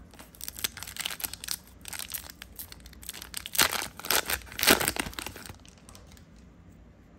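Foil booster-pack wrapper of a Disney Lorcana trading card pack being torn open and crinkled, an irregular crackle that is loudest about four to five seconds in and then stops.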